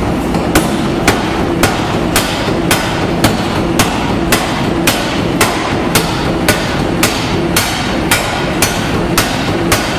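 Massey power hammer forging a red-hot steel bar, striking in a steady rhythm of about two blows a second from about half a second in, over a continuous machine hum.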